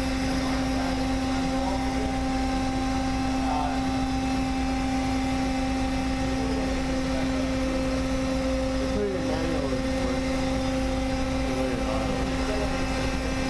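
Steady, unchanging machinery drone inside a warship's mission bay: a constant low hum with a low rumble beneath it, with faint voices of crew now and then, strongest about nine seconds in.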